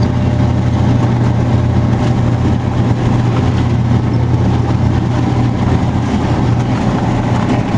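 Amusement-park ride machinery running with a steady, loud low hum.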